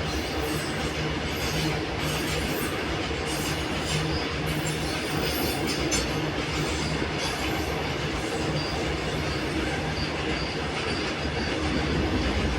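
A train crossing a bridge overhead, heard from underneath: a loud, steady rumble and clatter of wheels on the rails and bridge structure, with short high squeals later on.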